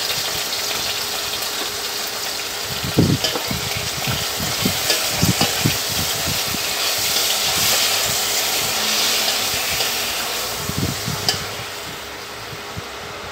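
Raw chicken pieces sizzling in hot oil with garlic, onion and ginger in a stainless steel pot, stirred with a wooden spoon that scrapes and knocks against the pot several times. The sizzle eases near the end.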